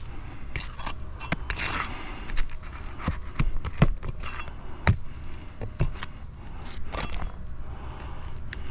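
Metal roofing tool scraping, clicking and knocking against brittle Atlas Chalet asphalt shingles as they are worked loose: an irregular run of sharp clicks and short scrapes over a steady low rumble.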